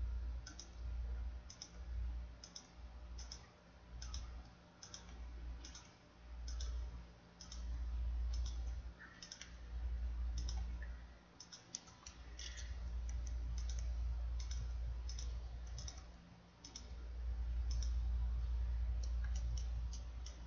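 Computer keyboard and mouse clicks, a sharp click every second or so, often in quick pairs, as key E is pressed and the mouse clicked over and over to extrude one vertex after another. A low rumble swells and fades underneath.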